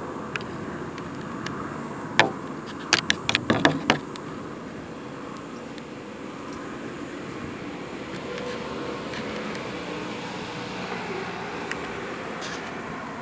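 Steady outdoor background noise. About two seconds in there is a single sharp click, then a quick run of about six sharp clicks over the next second.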